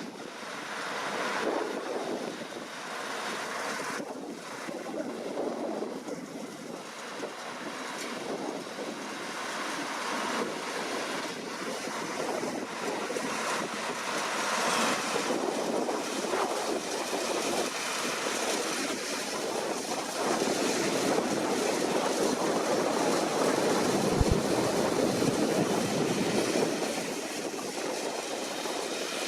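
Deutz-Fahr C9306TS combine harvester running at work, a steady mechanical din that grows louder about two-thirds of the way in as it draws closer.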